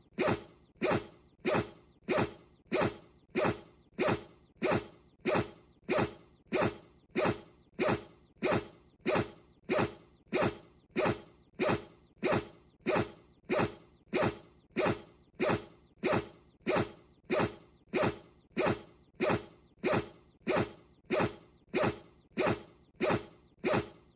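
Bichon Frise sneezing over and over in a very even rhythm, about three sneezes every two seconds, each one sharp at the start and fading quickly.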